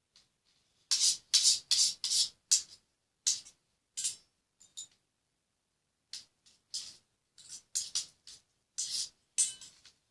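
Homemade detergent-and-glue slime being worked by hand, a string of short sticky squishing and crackling sounds. They come in quick bunches, stop for a moment about halfway through, then start again.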